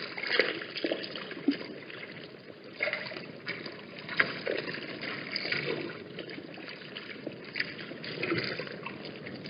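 Wind buffeting the microphone in uneven gusts, with scattered small splashes and knocks of water.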